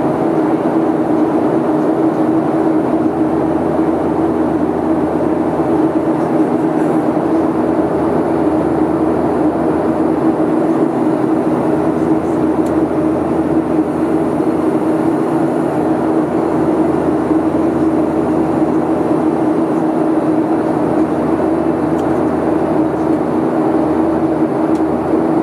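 Airliner cabin noise in flight: a steady, even rush of jet engines and airflow, with a constant low drone.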